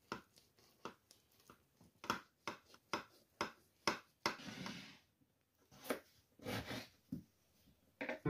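Knife cutting through a baked potato and eggplant gratin in a glass baking dish: a series of sharp taps of the blade about twice a second, with a short scraping slice about halfway through and another about two seconds later.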